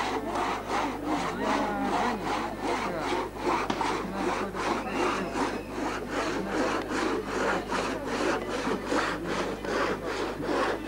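Two-man crosscut saw pulled back and forth through a log, an even rhythm of about three strokes a second, with faint voices behind.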